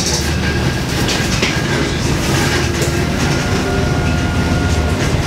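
Cabin noise inside a moving LiAZ-677M city bus: its V8 petrol engine running under way, with the body and fittings rattling and knocking. A faint steady whine joins about halfway through.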